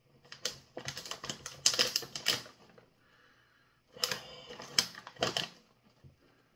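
A plastic snack bag of cheese balls being torn and pulled open by hand, its packaging crinkling and rustling in two spells with a short lull about three seconds in.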